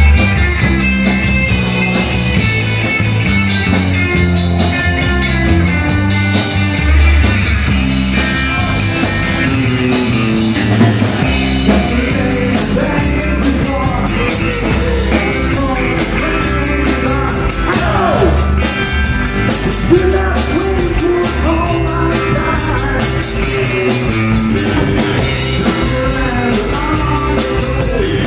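Rock band playing, with electric guitar and drum kit keeping a steady beat.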